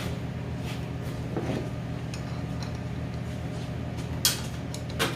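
Metal hand tools clinking and tapping against a die grinder's metal body, with two sharper clinks near the end, over a steady low hum.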